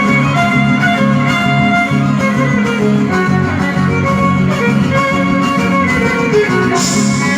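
Folk string music: a violin playing a melody over plucked guitar accompaniment, with a short burst of hiss near the end.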